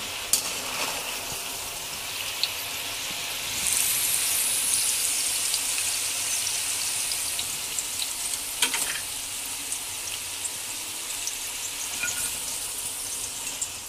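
Potato fries deep-frying in hot oil in a metal kadai: a steady sizzle with scattered crackles and sharp clicks, growing louder about four seconds in.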